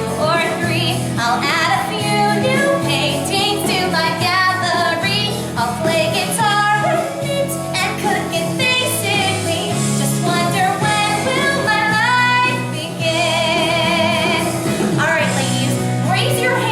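Pop song with a woman singing over steady backing music.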